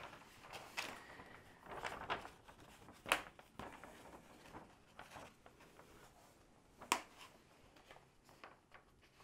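Rustling and crinkling of a large rolled diamond-painting canvas and its plastic cover film being unrolled and handled, with two sharp crackles about three and seven seconds in.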